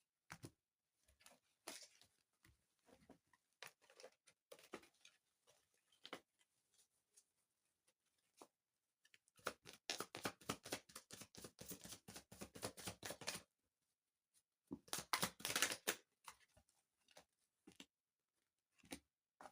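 Tarot cards being handled and shuffled: scattered soft clicks and taps, then a run of rapid card flicking about halfway through and a shorter burst a few seconds later.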